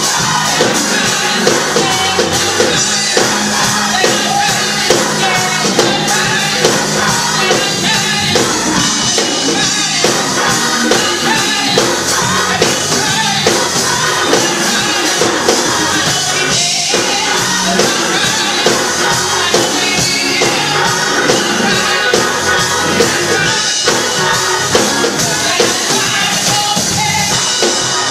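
Gospel song performed live: a woman singing lead into a microphone, with backing singers and a band keeping a steady beat.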